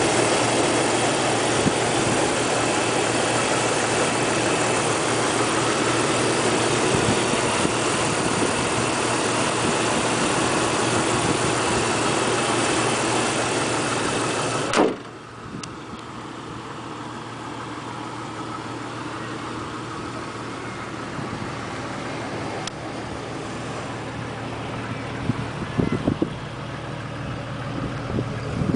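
Jeep Cherokee engine idling steadily, heard close up over the open engine bay. About halfway through there is a single bang, and from then on the engine is heard much quieter.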